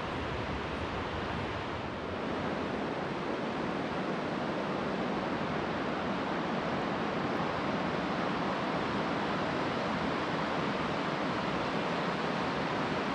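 Steady rush of flowing water from a small mountain river, an even hiss that grows a little louder about two seconds in.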